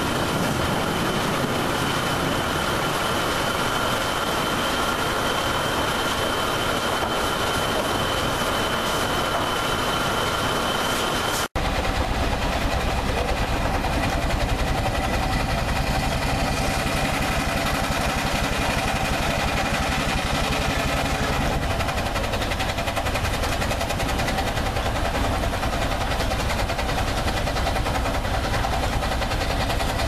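Sawmill machinery running with a steady high whine. After a sudden break about a third of the way in, steam vents from an exhaust pipe over a steady low engine rumble.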